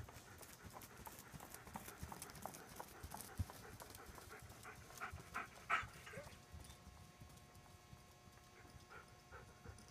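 Hoofbeats of a ridden pony trotting on soft arena footing, a regular run of knocks that grows fainter after about six seconds as the pony moves away.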